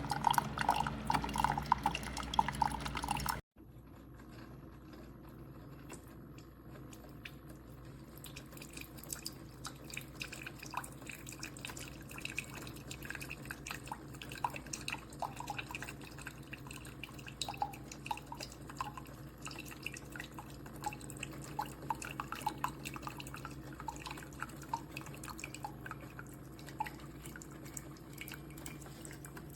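Keurig K-Supreme coffee maker dispensing coffee into a cup: a louder stream for about the first three seconds, then after an abrupt cut, quieter scattered drips over a low steady hum.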